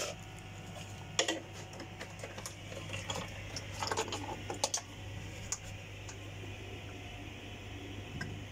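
A few light clicks and taps of kitchen items being handled by the stove, scattered irregularly over a steady low hum.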